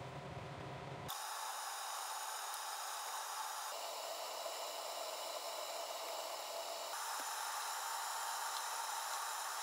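Coca-Cola poured into a hot frying pan of browned chicken wings, then the lidded pan simmering with a steady sizzling, bubbling hiss that changes abruptly a few times.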